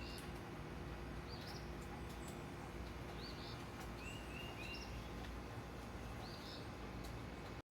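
Birds chirping, short high arched notes repeated every second or so, over a steady low outdoor rumble.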